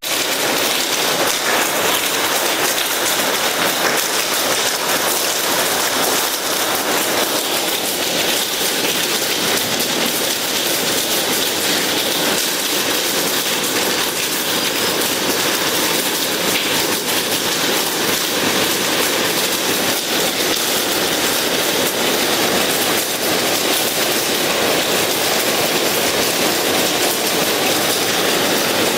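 Heavy rain mixed with hail, a dense steady hiss of drops and hailstones pelting down on hard surfaces.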